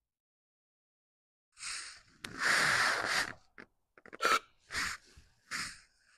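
Aerosol carburetor cleaner sprayed into the open intake of a Kohler engine that has no carburetor fitted. After a second and a half of silence comes a short hiss, then a longer hiss of about a second, then three short puffs. The spray primes the engine so it can be tried for firing on a new spark plug.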